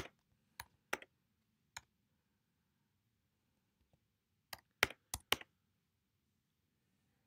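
Computer keyboard keystrokes, sharp separate clicks while code is typed. There are about four scattered keystrokes, a pause of a couple of seconds, then a quick run of four.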